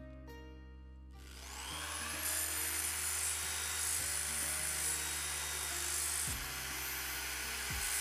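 Electric drill spinning up about a second in with a rising high whine, then running steadily as a small steel knife part is sanded against the sanding drum in its chuck. Background music plays underneath.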